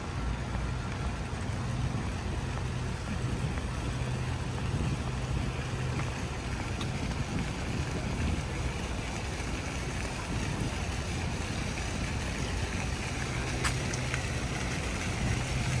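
Steady outdoor city background noise with a constant low hum under it.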